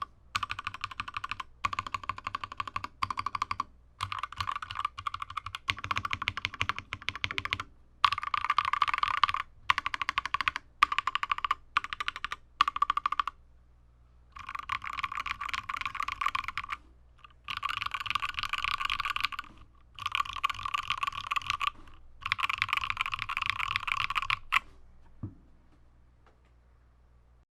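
Mechanical keyboard with KTT Rose linear switches on a carbon fibre plate, in an aluminium case, being typed on in fast bursts of keystrokes with short pauses between them. The typing stops near the end.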